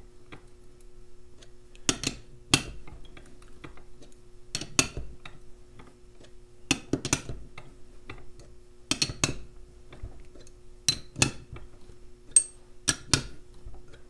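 A 3/4-inch combination wrench clinks against the hex of a screw expander as it is refitted and turned stroke by stroke, forcing the mini U-lock's shackle apart. Sharp metallic clicks come mostly in pairs, about every two seconds, over a faint steady hum.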